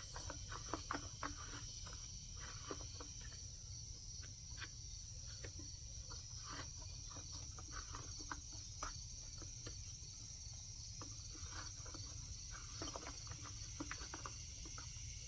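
Faint, steady chirring of crickets, with scattered light clicks and taps from the chainsaw's parts being handled.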